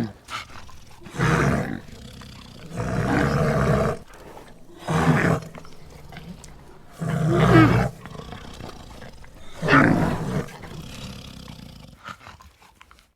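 Sound-effect roars made for the extinct giant bear Agriotherium: about five loud roars, each half a second to a second long and a second or two apart, with lower rumbling in between.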